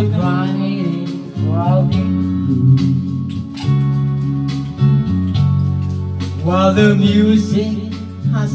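Music playing: a song with guitar and bass, with gliding melodic notes over held chords.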